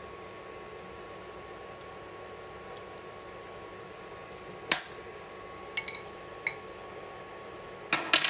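A steady hum with a thin high whine, from the induction hob running, under sharp clinks of kitchenware: one sharp clink about halfway, a few lighter ones a second or two later, and a quick cluster of glass clinks near the end as the glass bowl of beaten egg is lifted and tipped over the pan.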